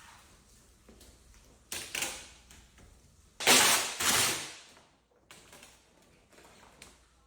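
Aluko vinyl wrap film being worked by hand, scraping and rustling. There is a short rush about two seconds in, then a louder, longer one in two strokes past the middle, between faint ticks and taps.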